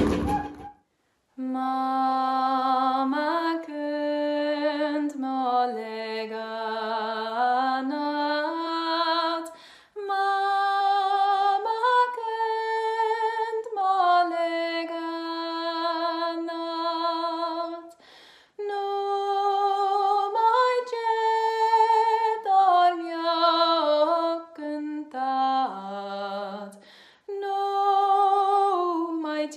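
A single voice singing a slow melody with no accompaniment, in long held notes, in phrases of about eight seconds with short breaks between them.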